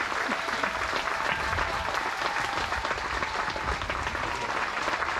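Audience applauding, many people clapping steadily at an even level.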